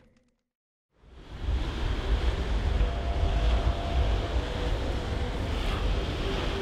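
Surf breaking on a gravel beach, with strong wind rumbling on the microphone. It comes in about a second in, after a moment of silence.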